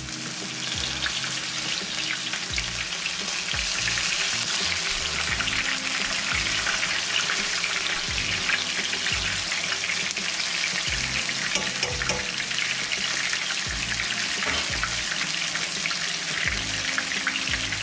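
Battered catfish fillets deep-frying in hot canola oil: a steady sizzle with fine crackling.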